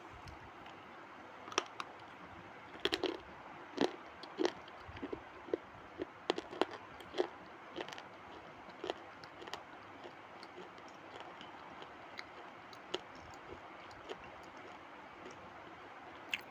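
Someone biting and crunching pieces of hard baked clay: a run of sharp, irregular crunches, thick in the first half and thinning out later.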